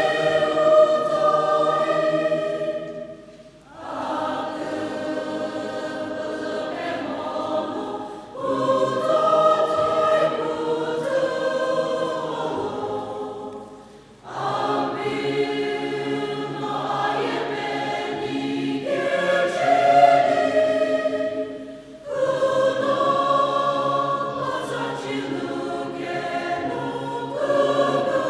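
A large church choir singing together, in long phrases of several seconds separated by brief breaks.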